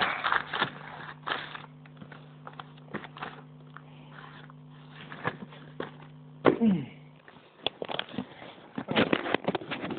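Handling noise from a phone being moved and propped up close to its microphone: scattered knocks, scrapes and rustles. There is a brief vocal sound about six and a half seconds in, and a low steady hum that stops about seven seconds in.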